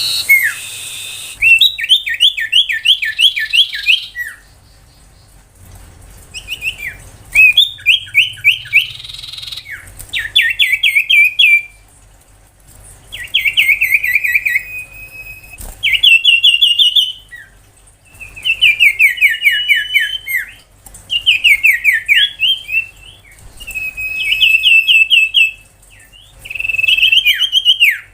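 Common iora singing: fast, repeated high chattering trills in phrases of a second or two, with short pauses between them, about ten phrases in all.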